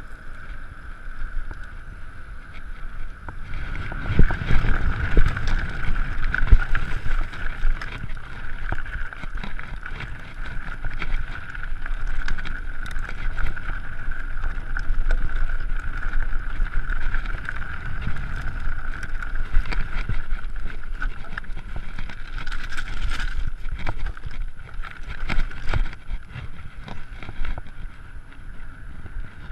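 Mountain bike riding, heard from a handlebar- or chest-mounted camera: wind buffeting the microphone and rumble from the tyres and frame, with surges of louder low rumble and scattered sharp rattles and knocks over bumps.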